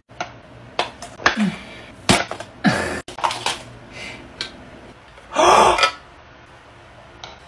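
A man's short grunts and mouth noises, then one loud gasp about five and a half seconds in.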